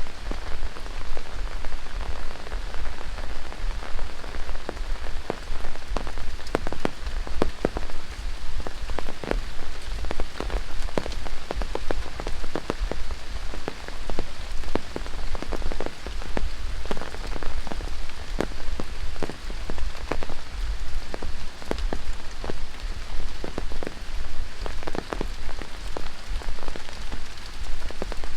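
Heavy tropical rain falling steadily on the rainforest, with many loud individual drops striking close by.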